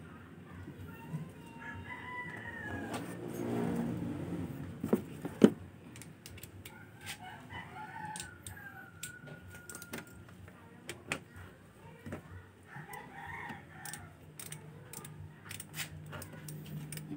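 Scattered sharp metal clicks and clinks of hand tools on a scooter engine being reassembled, with one loud knock about five seconds in. A bird calls in the background several times, over a steady low hum.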